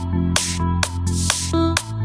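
Electronic dance music with a heavy bass line and a driving drum beat.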